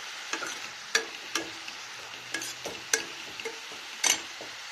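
Cabbage pickle (achar) frying in a pan: a steady sizzle of hot oil, with the stirring utensil clicking against the pan a dozen or so times.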